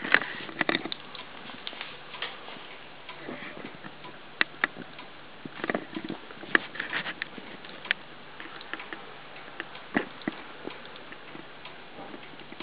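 Scattered light clicks and taps at uneven spacing over a steady hiss, with a cluster of them at the start and single sharp ones every second or two after.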